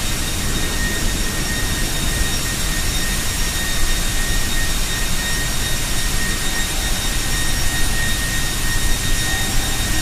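Basic oxygen steelmaking furnace at work, with flame and fume pouring from the converter mouth: a loud, steady, heavy roar with a constant high-pitched whine over it.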